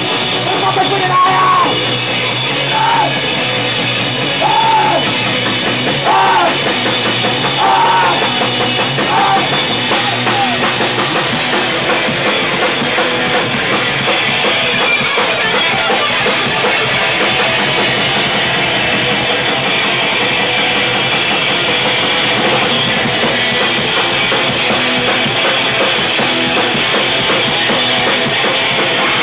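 Rock band playing loud with a drum kit, with short vocal phrases over it in the first ten seconds or so.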